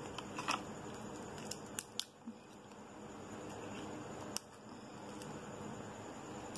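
Raw tiger prawn's shell being pulled off by hand: a few faint, sharp clicks and crackles of shell, most in the first two seconds and one more about four seconds in.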